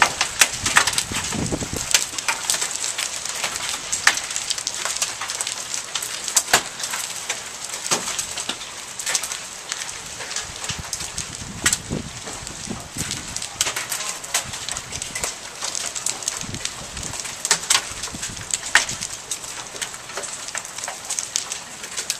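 Rain falling steadily at the tail end of a hailstorm, an even hiss with many sharp, irregular ticks of drops, and perhaps the last hailstones, striking hard surfaces.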